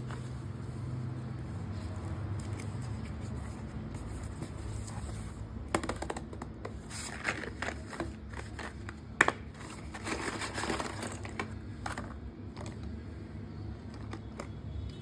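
A courier parcel's packaging being cut and torn open, with crinkling and scraping, a cluster of sharp snips and clicks in the middle, over a steady low hum.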